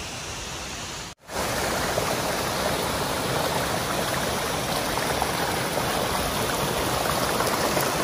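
Shallow stream running over gravel and stones: a steady rush of water. About a second in the sound drops out for a moment, then comes back louder and closer.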